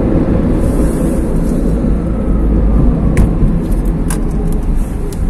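Road noise inside a moving car's cabin: a steady low rumble of engine and tyres, with a few sharp clicks in the second half.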